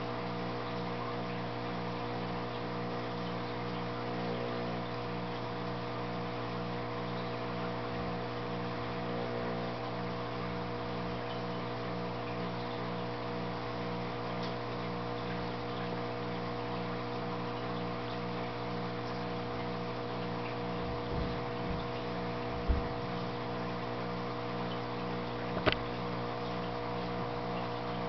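Steady hum of running aquarium equipment, several fixed tones with a low one pulsing in a regular rhythm. Two sharp knocks come in the last third.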